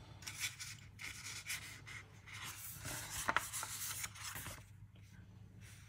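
Paper rustling and rubbing as the pages of an instruction booklet are handled and turned, with a sharper flick about three seconds in.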